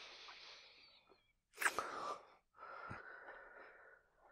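A man's breathing close to the microphone: a long breath out, a sharp breath in about a second and a half in, then another long breath out.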